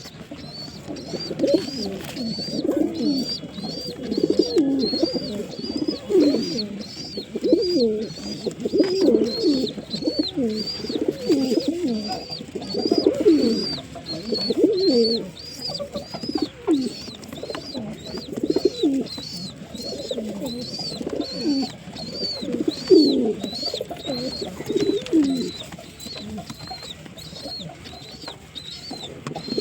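Pigeons cooing in repeated low, gliding phrases, with a steady run of thin high chirps repeating about one and a half times a second.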